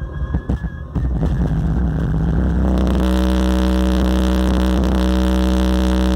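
Six 12-inch DS18 subwoofers powered by a SounDigital 8000 amplifier playing an SPL burp: a loud, sustained low bass tone. It starts about a second in, wavers briefly, then holds one steady pitch.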